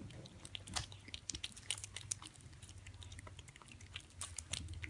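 Cats chewing and smacking on food from a bowl: a run of quick, irregular eating clicks over a low steady hum.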